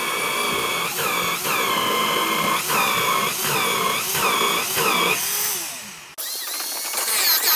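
Electric drill in a drill stand boring into a wooden plank: a steady motor whine whose pitch sags about twice a second as the bit is pushed into the wood. It then winds down and stops about six seconds in.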